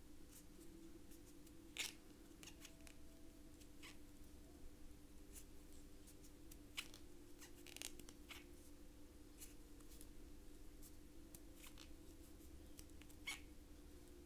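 Faint scattered clicks and ticks from a crochet hook working yarn, a few of them sharper than the rest, over a low steady hum.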